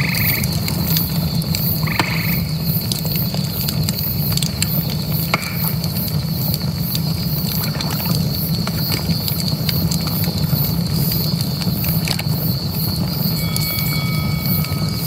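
Bonfire crackling with scattered sharp pops over a steady low rush, while night insects trill steadily. A few short frog calls sound in the first five seconds.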